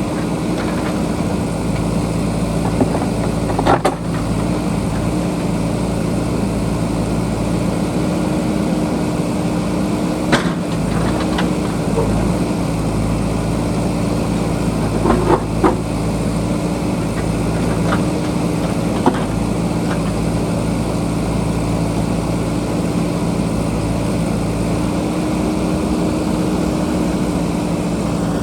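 JCB backhoe loader's diesel engine running steadily, with a few sharp knocks now and then.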